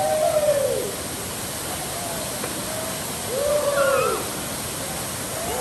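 Steady rush of a waterfall, with short hooting calls that rise and fall over it, a few overlapping near the start and another cluster about three and a half seconds in.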